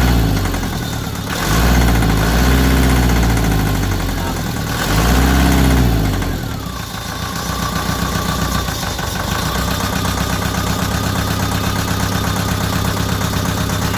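Deutz TCD 2011 four-cylinder diesel engine revved up and back down three times, then settling to idle with an even rhythmic pulse. It is still misfiring, with cylinders 2 and 3 not firing even after freshly calibrated injectors were fitted.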